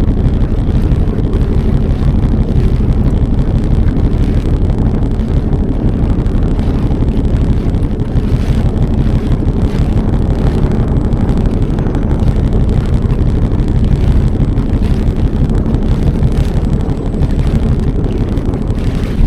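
Jet ski engine running steadily under way across open water, with wind buffeting the microphone.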